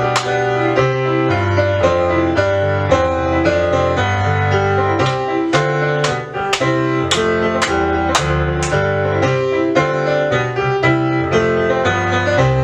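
Piano music with a steady beat, roughly two accented notes or chords a second over a moving bass.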